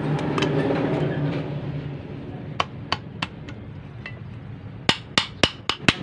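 A steady low hum fades over the first two seconds. Then a few light knocks follow, and near the end a quick run of loud, sharp taps, about four a second, on the alternator's aluminium rear housing as it is knocked down to seat it on the stator and front housing.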